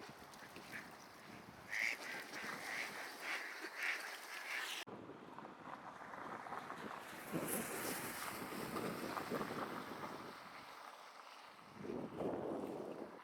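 Wind buffeting the microphone over moving river water, with a quick run of short mallard quacks from about two seconds in.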